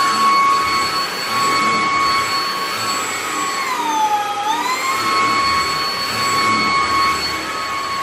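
Greenote GSC50 cordless stick vacuum cleaner running steadily while it is pushed over a deep-pile shag rug: a steady high motor whine over the hiss of suction. About four seconds in, the whine dips briefly in pitch and then rises back.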